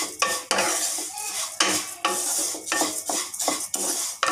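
Wooden spatula stirring and scraping vermicelli around a non-stick frying pan in irregular strokes, over a sizzle of the frying oil as the vermicelli is fried until golden.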